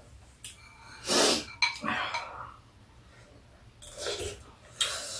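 People eating hot soup: a loud, sharp burst of breath about a second in, a spoon clicking against a bowl just after, and two shorter breath noises near the end.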